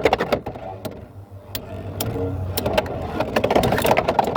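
Two Beyblade X spinning tops, just launched, spinning and clashing in a plastic stadium: a steady whir under rapid clicks and knocks as the tops strike each other and the stadium wall, growing denser near the end.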